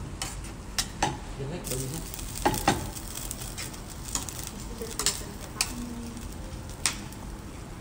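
Spaghetti in bolognese sauce sizzling in a skillet over a gas flame while it is stirred and tossed with tongs, with sharp clicks of the tongs against the pan.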